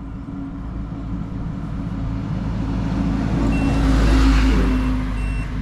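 A motor vehicle passes by, swelling to its loudest about two-thirds of the way through and then fading, over a steady low hum. From a little past halfway, a high electronic beep repeats about twice a second.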